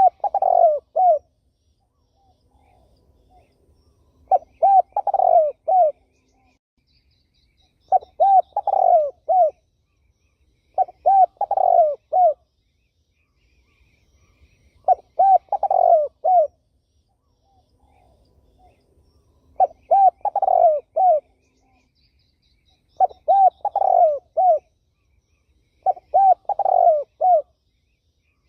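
Spotted dove cooing: a short phrase of a few hooting notes, repeated about every three to four seconds, eight times.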